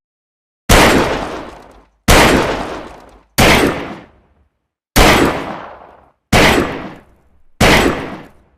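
Six revolver shots, evenly spaced about a second and a third apart. Each is a sharp crack with a long echoing tail that dies away just before the next shot.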